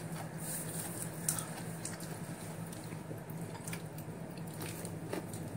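A person chewing salad and biting into a green chilli, with a few faint clicks over a steady low hum.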